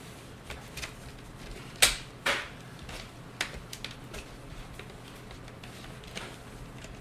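Plastic screen bezel of an Acer E5-573T laptop being pried loose, its clips giving a few sharp clicks and snaps, loudest about two seconds in, with another soon after and one at about three and a half seconds.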